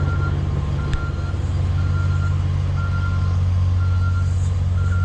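Reversing alarm on a working machine beeping about once a second, over a diesel engine's steady low running.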